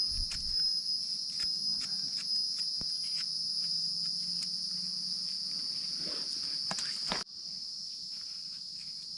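Insects droning steadily at a high pitch, with scattered light taps and crackles close by. The lower sounds drop away abruptly about seven seconds in while the insect drone carries on.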